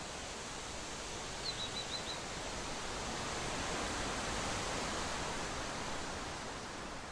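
Steady outdoor background noise, an even hiss with no clear source, with four quick high chirps about a second and a half in.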